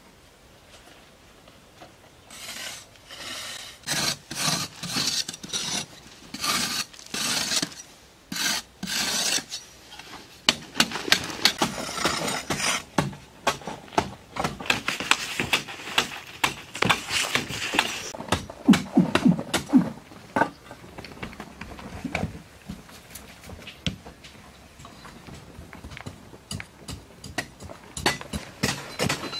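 Rough scraping and rubbing on a dry earth wall as it is worked smooth. The strokes come about one a second at first, then grow denser and run together, and turn to short scratchy ticks near the end.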